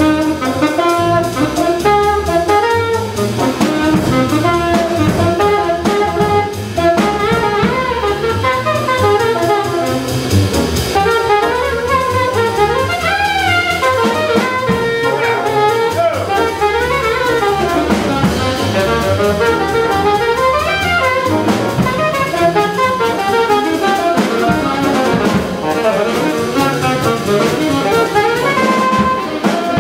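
Live jazz quartet: saxophone playing a moving melodic line over grand piano, plucked upright double bass and drum kit.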